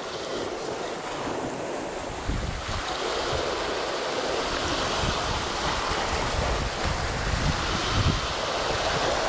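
Sea waves breaking and washing over rocks, with wind buffeting the microphone. The surf gets louder about two and a half seconds in.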